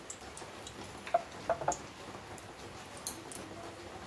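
Cooking oil heating in an empty kadai, giving scattered small ticks and pops, a few close together about a second and a half in.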